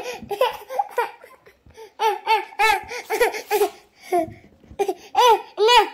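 High-pitched laughter in quick repeated bursts, from a child by its pitch, each burst a short breathy rise and fall in pitch.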